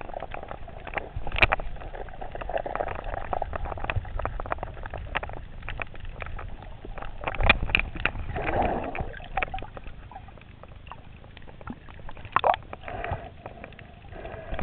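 Water sloshing and gurgling, with many scattered sharp clicks and a steady low rumble.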